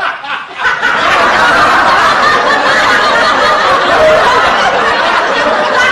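Sound effect of a large group of people laughing together at once, a dense mass of overlapping laughter that builds over the first second and then holds steady and loud.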